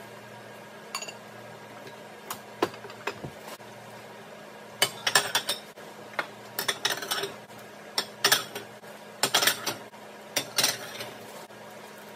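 Porcelain plates and glass dishes clinking and clattering as they are lifted and set down on a table crowded with stacked dinnerware. A few single light knocks come first, then repeated bursts of clatter from about five seconds in.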